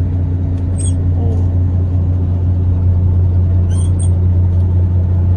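Fishing boat's engine running with a steady low drone, with a few faint high clicks about a second in and again near four seconds in.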